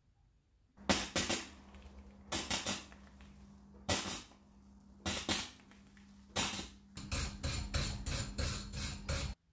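MIG welding in short crackling bursts, about five of them a second or so apart, laying tack welds over a crack in a thin sheet-metal screwdriver ferrule, with a steady low hum under them. Near the end, quick back-and-forth strokes of a steel wire brush scrub the fresh weld, stopping abruptly.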